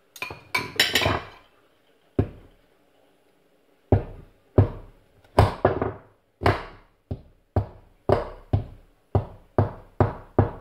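A quick clatter of knocks, then a steady run of sharp knocks on the kitchen worktop, about two a second from about four seconds in, each with a short ringing tail.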